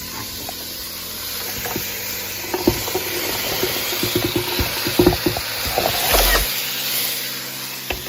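Chicken, onions and freshly added carrots sizzling in a hot pan, with a utensil knocking and scraping against the pan in a run of clatters from about two and a half to six and a half seconds in.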